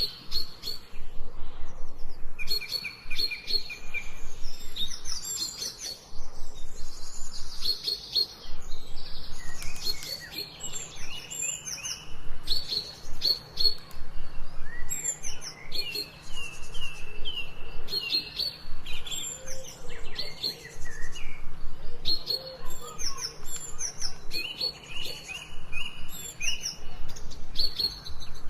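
Several songbirds chirping and singing at once, with quick runs of short repeated notes and trills that overlap throughout.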